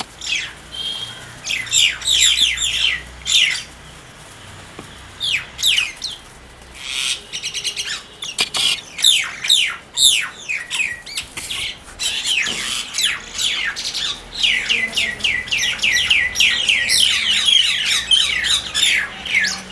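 Common mynas calling while they fight: rapid runs of short, falling calls in bouts, with brief lulls between them.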